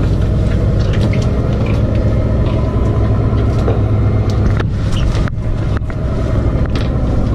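Fishing boat's engine and hydraulic deck winch running with a steady low hum, with scattered clicks and knocks from rope and gear on deck.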